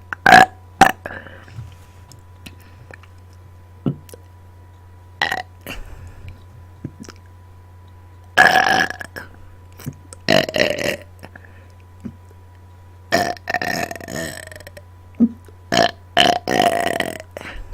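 A person burping loudly right into a microphone, about ten burps in a row. Some are short and sharp, a few are long and drawn out, with gaps of quiet between them.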